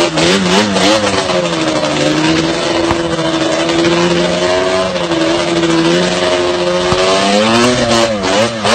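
Quad bike (ATV) engine running hard at high revs, its pitch wavering up and down, then dipping and rising sharply near the end.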